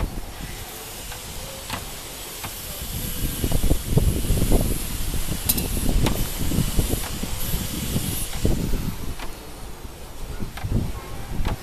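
A steady hiss that fades out near the end, with irregular low thuds beneath it.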